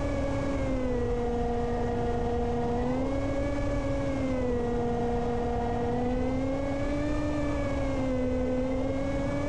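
Electric motor and propeller of a Reptile S800 flying wing running in flight, a steady whine whose pitch rises and falls gently every few seconds as the autopilot adjusts the throttle. A low wind rumble lies underneath.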